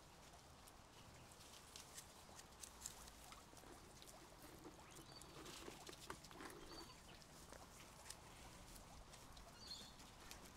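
Guinea pigs faintly munching and shuffling about while they eat, with scattered small clicks and a few brief high peeps.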